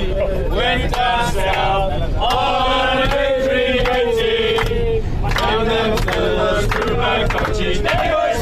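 A group of men singing and chanting together loudly in celebration, holding one long note in the middle, with sharp claps scattered through the second half.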